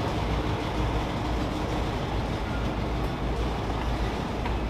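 Freight train of covered hopper cars rolling along the track: a steady low rumble with a couple of faint clanks near the end, where it starts to fade.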